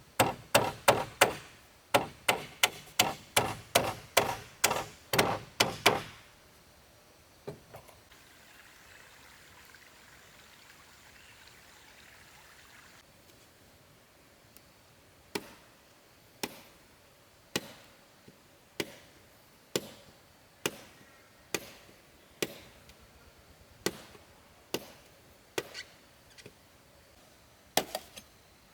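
Hammer knocking on wood: a fast run of blows, about three a second, for the first six seconds, then after a pause steady single blows about once a second.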